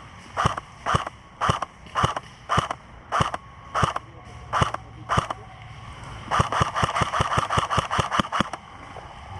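Airsoft rifle firing: about ten single shots at a steady pace of roughly two a second, then, after a short pause, a faster string of about fifteen shots.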